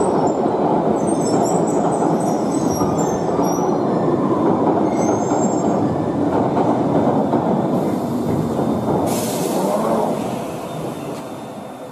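London Underground Piccadilly line tube train (1973 Stock) running through the station, a loud rumble with high-pitched wheel squeals over the first few seconds. A short hiss comes about nine seconds in, and the rumble fades away near the end.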